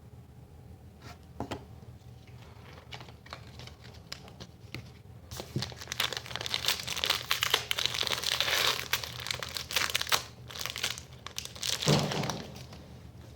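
Plastic trading-card pack wrapper being torn open and crinkled by hand, starting about five seconds in after a few light clicks, with a dull thump near the end.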